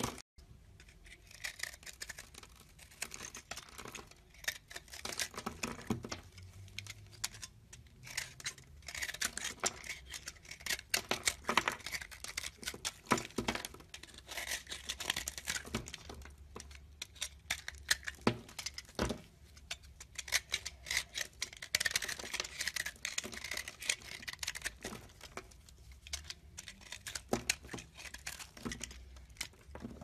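Fingers crumbling and breaking apart a bar of soap into flakes, a close, continuous run of dry crackles and crunches with louder bunches of snaps.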